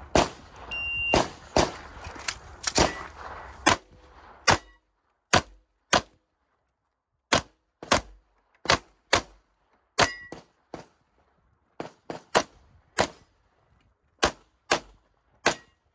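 Pistol shots fired in quick pairs and singles through a practical-shooting stage, about two dozen in all, with a few followed by a short metallic ring from steel targets being hit.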